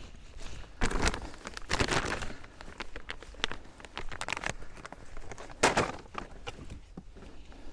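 Footsteps swishing through dry grass and a plastic feed bag rustling as a person walks up and past, in several uneven bursts, the loudest a little before six seconds in.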